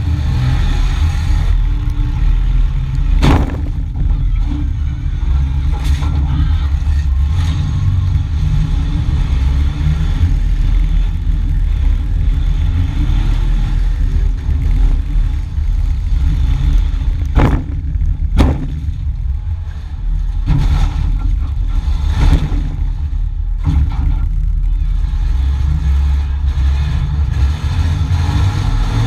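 Demolition-derby vehicle's engine running and revving with a heavy low rumble, heard from inside its gutted cab, with several sharp knocks and clatters of loose metal.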